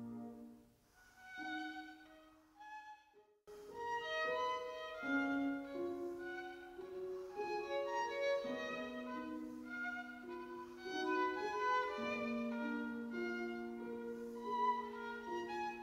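Classical violin music. A held passage fades out soon after the start and a few soft notes follow. After a brief pause about three and a half seconds in, a new melodic passage begins.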